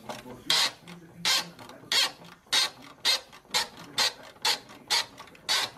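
Socket ratchet on a nut at the strut-tower top mount, its pawl clicking in short bursts as the handle is swung back and forth, about two strokes a second.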